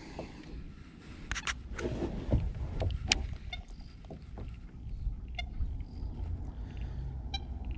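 Hands working a baitcasting fishing reel and its line, giving a few sharp clicks and short runs of ticks, over a steady low rumble.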